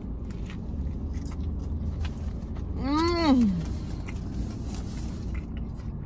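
A woman chewing a mouthful of burrito with faint wet mouth clicks, and about halfway through a single pleased 'mmm' hum that rises then falls in pitch. A steady low rumble of the car runs underneath.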